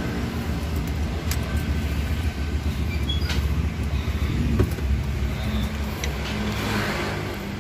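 Rumbling and a few sharp clicks from a smartphone being handled and turned over, fingers rubbing and tapping near its microphone, inside a car cabin.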